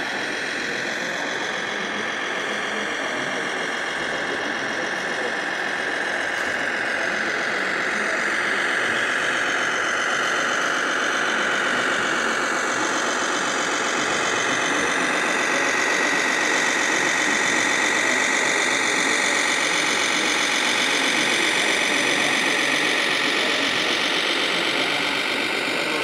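Scale RC Mercedes-Benz Unimog truck running, a steady engine-like sound that grows slightly louder partway through.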